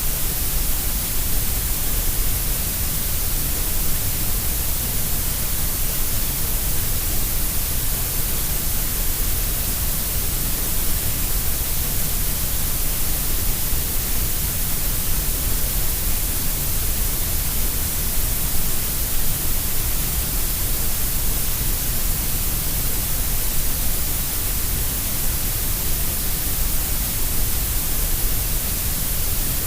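Steady grey noise: an even, unchanging hiss, heavier in the deep rumble and the high hiss than in the middle pitches.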